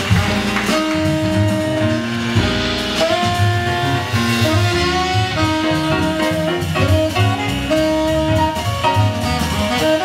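Small jazz group playing live: a tenor saxophone carries a melodic line of held and moving notes over plucked double bass and drum kit.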